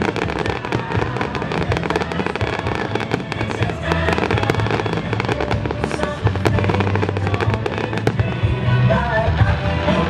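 Aerial fireworks shells bursting in a dense string of bangs and crackles, over the music of a pyromusical show.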